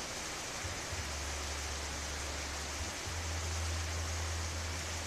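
Steady rain falling, an even hiss of rain with no single drops standing out, over a low steady hum that breaks off briefly twice.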